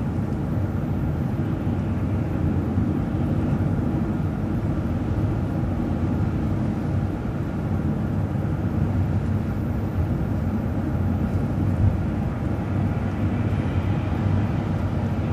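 City transit bus driving along the road: a steady low engine drone mixed with road noise.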